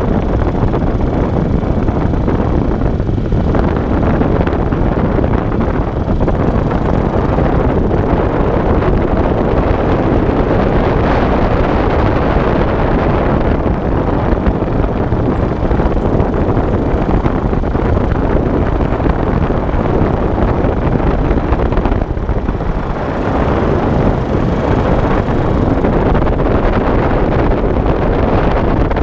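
Wind rushing over the microphone of a camera riding along on a moving bicycle: a loud, steady roar of air noise that eases briefly about three-quarters of the way through.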